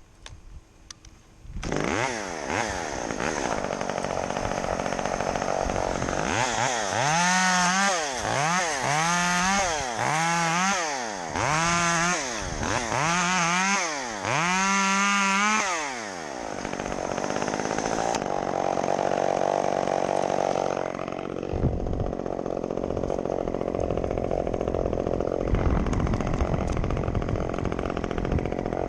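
Chainsaw starting up about a second and a half in, then revved five times in a row, its pitch rising and falling about every two seconds, before running on steadily.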